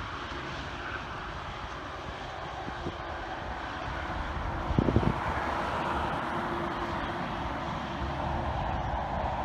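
Boeing 787 Dreamliner's jet engines during the landing roll-out: a steady rushing jet noise that grows louder through the second half. There are a couple of brief low thumps about halfway through.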